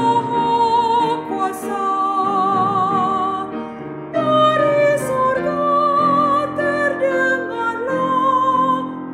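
A woman's solo voice singing a slow hymn in Indonesian with vibrato, accompanied by piano; one sung phrase ends and the next begins about four seconds in.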